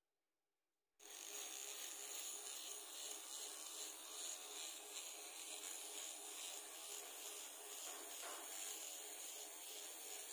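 A Flawless facial hair remover, a small battery-powered trimmer, running as it is moved over facial skin: a steady high-pitched whir with rubbing. It starts abruptly about a second in.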